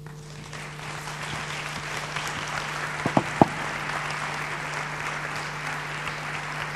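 Audience applauding at the end of a talk, swelling in the first second and then holding steady. Two short louder sounds stand out about three seconds in.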